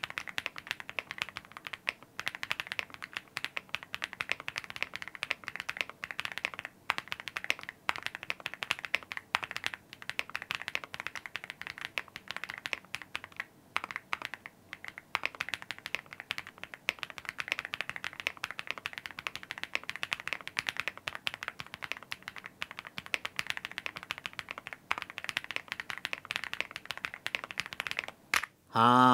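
Fast continuous typing on a Tecware Alloy 75 full-aluminium, gasket-mounted mechanical keyboard with pre-lubed red linear switches: a dense run of key clicks with a few brief pauses. The keystrokes sound soft and not harsh.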